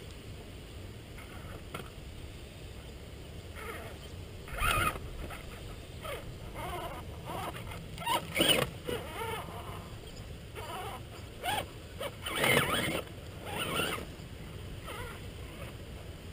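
Axial Wraith RC rock crawler's electric motor whining in several short throttle bursts, some rising and falling in pitch, as it climbs and tips over rocks; the bursts come about five seconds in, around eight to nine seconds and again around twelve to fourteen seconds, over steady low background noise.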